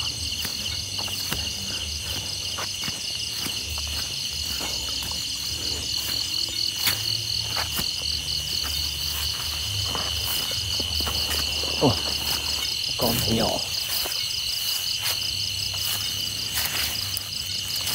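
Night chorus of crickets trilling steadily in a fast-pulsing high chorus, with scattered clicks and low rustling, and two brief louder sounds about twelve and thirteen seconds in.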